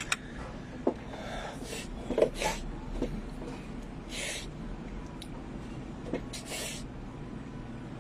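Quiet radio-studio room tone broken by a few soft clicks and short breathy hisses, the sounds of someone moving at the desk and microphone between announcements.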